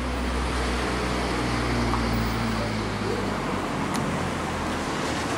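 A car engine running at low revs close by as a car drives off slowly, over a steady hum of street traffic. There is a single sharp click about four seconds in.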